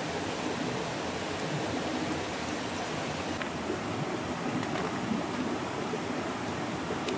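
Steady rush of a flowing river, an even, unbroken water noise.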